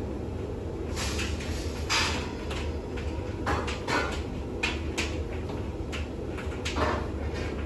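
Bosch WAX32GH1 front-loading washing machine in its intermediate spin, the drum running with a steady low hum and irregular knocks and rushes from the wet laundry and machine.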